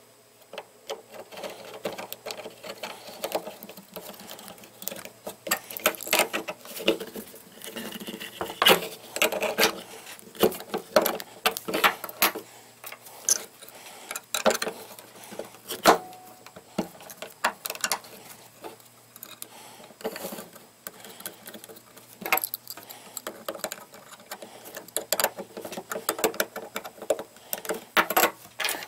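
Small brass ball valve and galvanized steel pipe fittings being handled and screwed together by hand: an irregular run of metallic clicks, taps and clinks.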